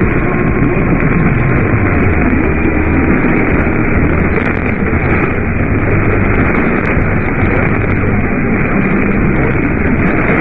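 Steady static hiss from a radio receiver on a weak signal, with a voice faintly buried under the noise.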